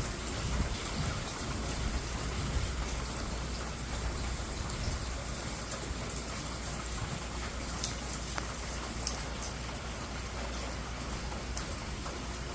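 Steady rain falling, an even hiss with a few distinct drops ticking here and there.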